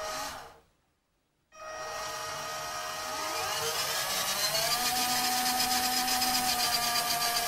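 Brushed 380 electric motor and gearbox of a Mz-yy2004 6x6 RC truck whining as the wheels spin freely in the air. A brief motor sound dies away at the very start, then after a short pause the motor starts up about a second and a half in. Its pitch rises as the throttle is opened gradually, then holds steady at high speed.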